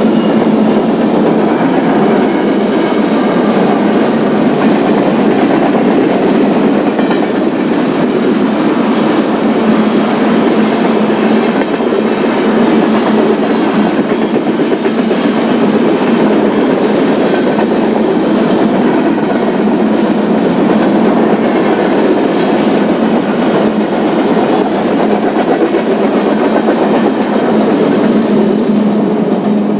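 Freight cars of a BNSF manifest train rolling steadily past, their steel wheels clattering over the rail joints.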